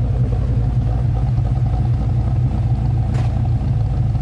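Holden R8 Clubsport's LS1 5.7-litre V8, freshly fitted with a Comp Cams camshaft, running at a steady idle with a low, even rumble. A short click sounds about three seconds in.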